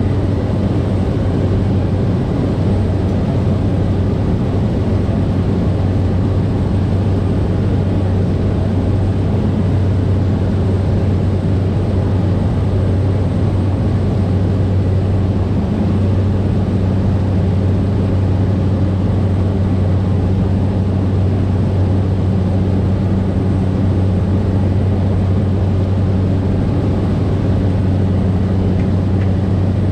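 Cessna 208B Caravan's single Pratt & Whitney PT6A turboprop and propeller droning steadily in flight, a deep even hum. A second, higher steady tone comes in about halfway through.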